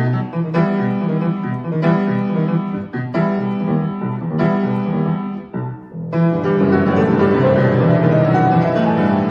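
Grand piano played solo. Separate struck chords come about once a second at first, then from about six seconds in a dense, rapid, louder passage runs across the keyboard.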